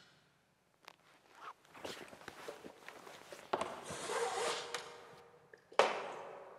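Rope and cloth rustling as wrapped legs are bound with rope: scattered short scrapes, a longer rasping pull a little after three seconds in, and a sharp rasp near the end, the loudest sound, fading out.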